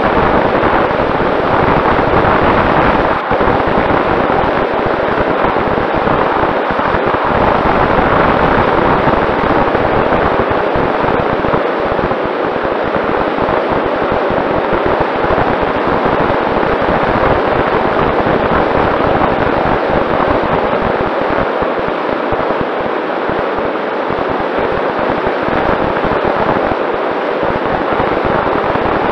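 Loud, steady rush of air and wind buffeting on the microphone of a camera mounted on a Mini Talon RC plane in flight, crackling in the low end. Under it runs a faint steady tone from the plane's Sunnysky 2212 brushless motor and propeller.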